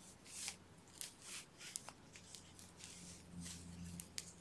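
Faint rustling of yarn being drawn through loops with a crochet hook: a run of short soft swishes with a few light clicks, over a low steady hum.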